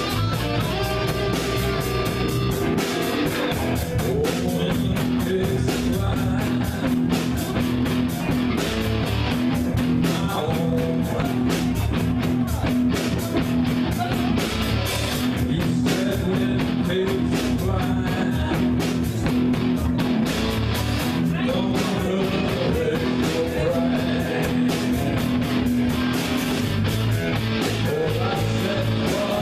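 Live rock band playing: electric guitar, bass guitar and a drum kit with many regular drum strokes throughout.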